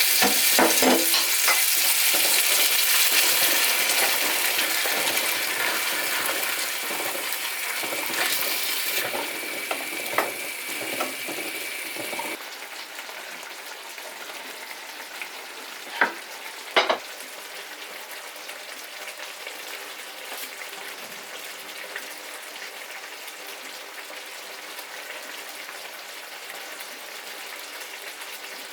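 Food sizzling and frying in a pan, a steady hiss that is loud at first and drops abruptly to a quieter sizzle about twelve seconds in. Two sharp utensil clicks come a few seconds later.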